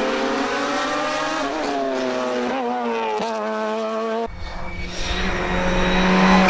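Race car engine accelerating hard through the gears, its pitch climbing and dropping briefly at quick gear changes. About four seconds in, the sound switches abruptly to a lower, rougher engine note that grows louder.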